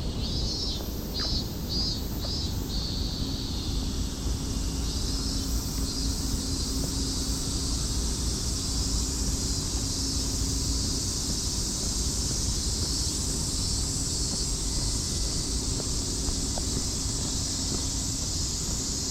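Cicadas singing in a steady high chorus, with a few short pulsing calls in the first three seconds. A faint low hum and rumble run underneath.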